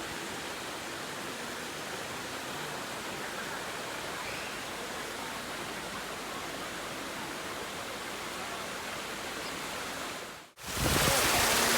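Steady rush of flowing water from a small creek waterfall. About ten and a half seconds in it cuts off for an instant, then comes back louder and fuller, the water now much closer.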